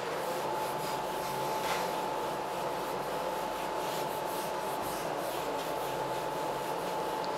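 Handheld whiteboard duster rubbing across a whiteboard, erasing the writing: a continuous dry rubbing noise, with a faint steady tone underneath.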